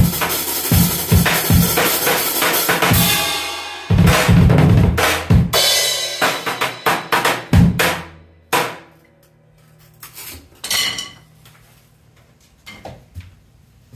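Acoustic drum kit played hard, bass drum and snare driving a busy fill-heavy passage with a roll a few seconds in. The playing stops a little past halfway, followed by a few scattered light hits and a short ringing.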